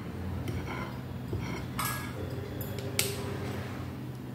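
Metal ladle clinking against a glass mixing bowl while scooping cake batter: a few light clinks, two clearer ones near the middle, over a steady low hum.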